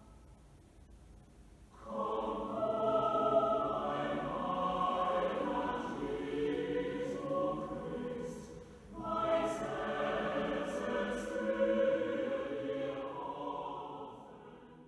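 Several voices singing together in a slow, sustained chant-like melody. It begins about two seconds in, breaks briefly about nine seconds in, picks up again and fades away near the end.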